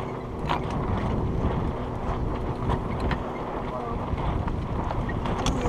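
Wind buffeting the microphone aboard a small sailboat drifting with its sails eased, with water moving against the hull and a few light knocks.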